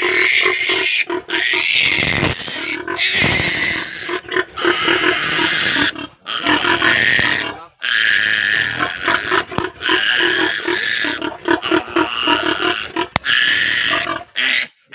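Day-old piglet squealing loudly and almost continuously in long, high screams, broken by brief gasps for breath. It is distress at being restrained with its mouth held open while its needle teeth are clipped.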